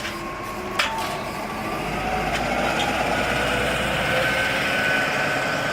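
Keisei bus turn-signal chime sounding briefly about a second in, then the bus engine running louder as it pulls away, with a thin whine slowly rising in pitch.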